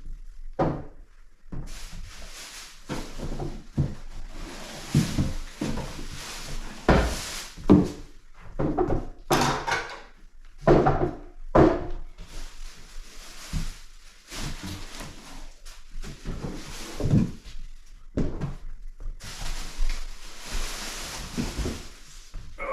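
Cat tree parts being lifted out of their shipping box and set down: irregular thunks and knocks, with stretches of rustling packaging.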